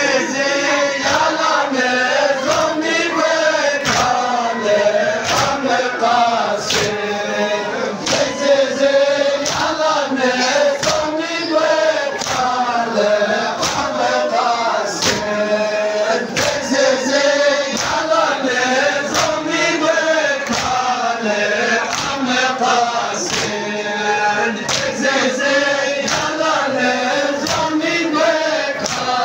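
Men's voices chanting a Balti noha together, with a steady beat of sharp slaps from matam (chest-beating with the palms) landing about every 0.7 seconds.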